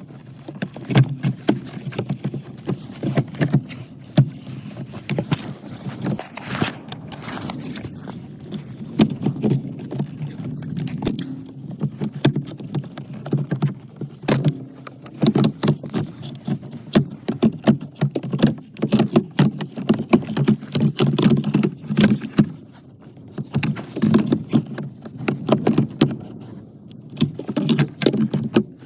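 Hand tools and parts being worked under a car dashboard while the heater blower fan is taken out: irregular clicks, knocks and scraping with no steady rhythm.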